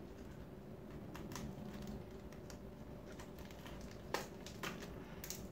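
Scissors snipping into a brown-paper package: faint, irregular clicks and paper crackle, with a sharper snip about four seconds in.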